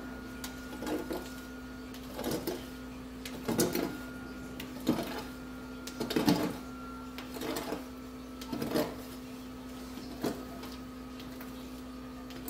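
Repeated scrubbing strokes on a stovetop, roughly one every second and a half, over a steady low hum.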